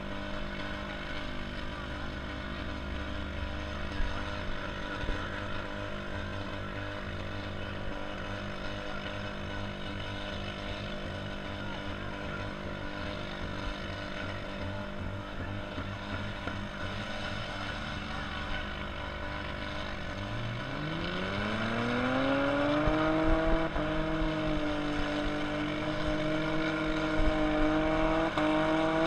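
Demolition derby car engine running steadily, then revving up smoothly about two-thirds of the way in and holding at higher revs, louder than before.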